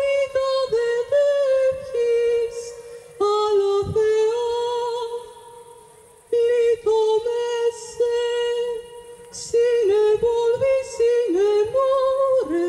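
A woman singing solo and unaccompanied in long, ornamented phrases with held high notes. She pauses for about a second about five seconds in, then sings on.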